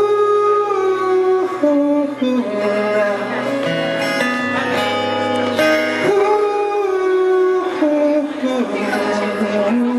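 Live solo acoustic song: a 12-string acoustic guitar strummed steadily under a male voice singing long held notes.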